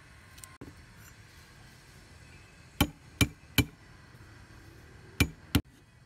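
A cleaver knocks down hard on garlic cloves on a wooden chopping board, smashing them: three quick knocks, then a pause and two more.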